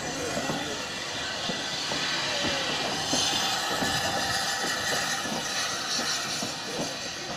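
Small saddle tank steam locomotive moving slowly along the track, giving a steady hiss of steam that grows louder about three seconds in, with irregular knocks and clanks underneath.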